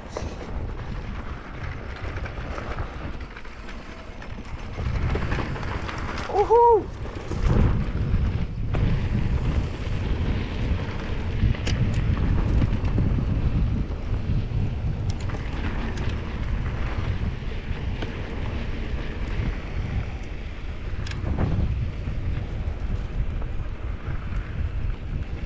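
Wind rushing over the microphone and the rumble and rattle of a Norco Sight VLT electric mountain bike rolling fast down a dirt trail, with one whooping shout about six seconds in.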